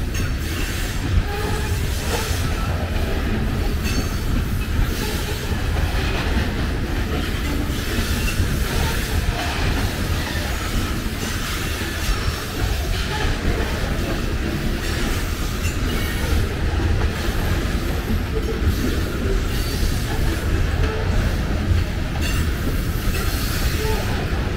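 Covered hopper cars of a freight grain train rolling past close by: a steady low rumble of steel wheels on rail, with irregular clicks and clanks as the wheels pass over the track.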